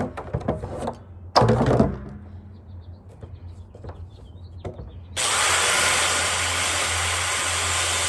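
Corded electric drill boring a starter hole into a 55-gallon barrel, running steadily from about five seconds in. Before that come handling knocks and one loud clatter about a second and a half in as the drill is set in place.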